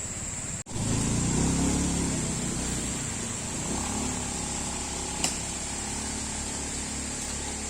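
Vehicle engine running while driving: after a cut just under a second in it comes in loudest and shifts in pitch, then settles into a steady low drone. A short sharp click about five seconds in.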